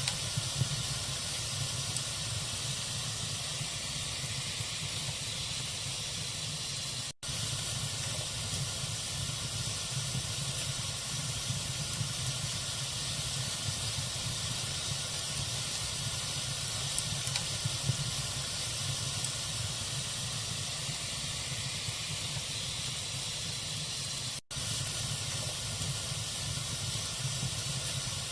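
Log fire burning with a steady hiss and scattered small crackles and pops. The sound cuts out for an instant twice, about 7 and 24 seconds in.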